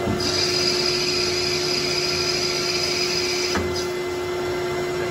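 Metal lathe running with a steady hum while the tool takes a turning pass on the stock, a high-pitched cutting hiss that starts just after the beginning and stops about three and a half seconds in.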